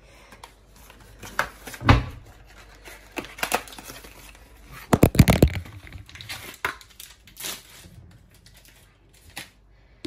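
Packaging of dog chews being opened: a cardboard carton pulled apart and the plastic wrapper inside torn and crinkled, a string of short tearing and rustling rasps, the loudest about five seconds in.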